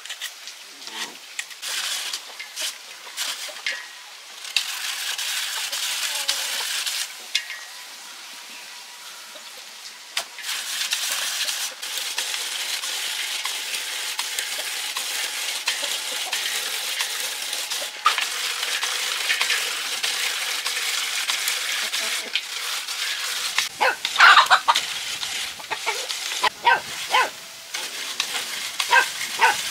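A steady hissing noise with scattered clicks, broken off twice, then a few short high-pitched calls near the end.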